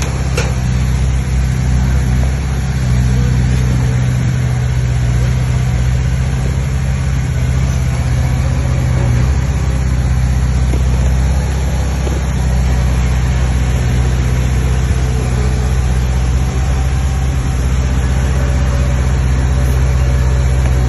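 Heavy diesel engine of earthmoving machinery running steadily, a loud low drone.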